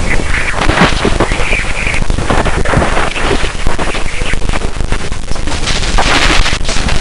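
Plasma waves around Jupiter's moon Ganymede, recorded by a spacecraft's radio instrument and converted to sound: a loud, dense hiss full of rapid crackling and popping, with short swelling whooshes.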